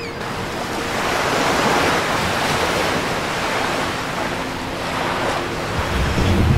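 Sea surf washing in slow swells, rising and falling twice, with a low boom near the end.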